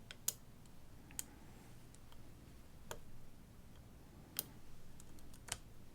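Lock pick clicking faintly against the pins of a pin-tumbler challenge lock under tension: about five sharp, separate ticks spread over a few seconds as pins set, bringing the lock to a false set.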